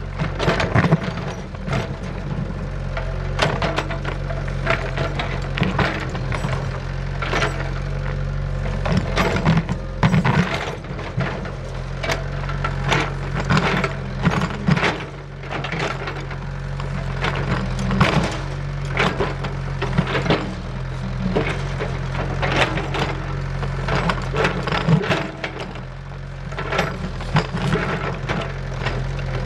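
Excavator's diesel engine running steadily while its steel toothed bucket digs into rocky soil, with frequent sharp cracks, scrapes and knocks as stones break and tumble against the bucket.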